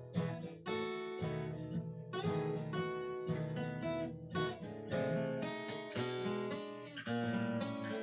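Acoustic guitar playing an instrumental break in a slow country song, strummed and picked with repeated chords and melody notes.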